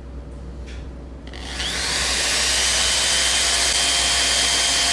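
Total TG105136 550 W corded impact drill switched on about a second in, spinning up and then running steadily with no load at about 1,400 rpm, its speed limiter set low. A steady whine sits over the motor hiss.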